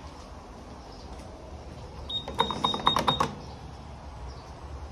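Lift call button being pressed rapidly, about seven quick clicks in a second over a steady high beep, about two seconds in.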